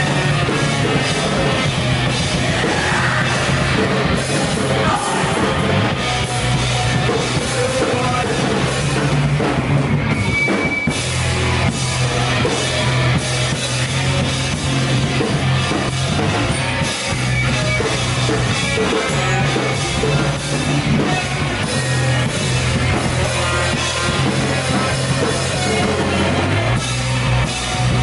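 A live rock band playing heavy rock: electric guitars, electric bass and drum kit. The bass line moves steadily under a dense wash of guitar and cymbals.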